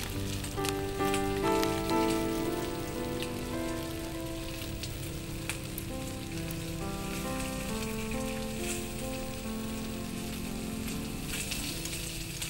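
Frying sizzle from a wok on a lit gas burner: a steady crackling hiss of hot oil. Soft background music with slow sustained notes plays under it.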